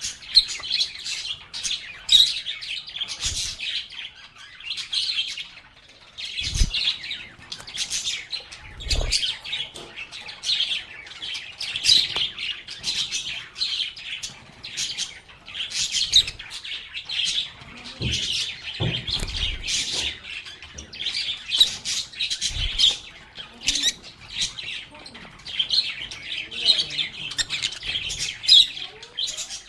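Lovebirds chirping and squawking in quick, overlapping short calls, with a few soft low thumps in between.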